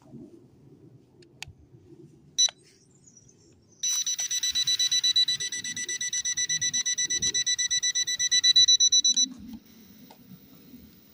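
Electronic beeping from the Huanchenda H23 drone's beeper as it is readied for takeoff: one short beep, then about five seconds of rapid beeps, roughly nine a second, at one steady high pitch, which stop abruptly. Faint wind rumble underneath.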